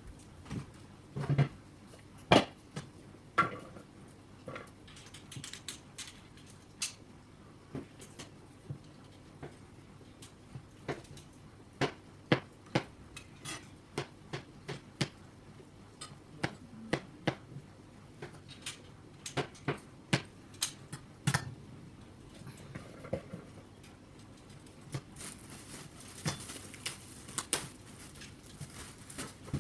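Irregular sharp metallic clinks and knocks, one or two every second or so, with a short soft hiss near the end.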